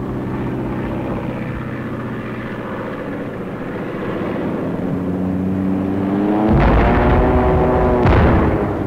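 Propeller aircraft engines droning steadily, the engine note climbing in pitch in the second half. Two loud surges of noise come near the end.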